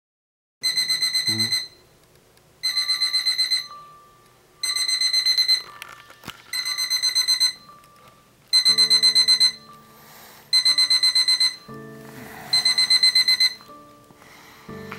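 Electronic alarm clock beeping: seven bursts of rapid, high-pitched beeps, one burst about every two seconds. Low background music comes in about halfway through.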